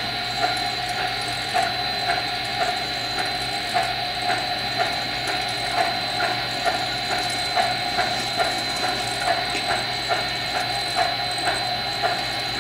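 HO-scale model ore train rolling past on the layout: a steady mechanical rattle with a constant high whine, and a click about once a second as the long string of loaded ore cars runs by.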